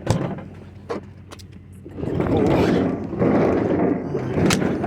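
A few light knocks, then about three seconds of rough rummaging noise with a sharp click near the end, as scrap items are handled and moved.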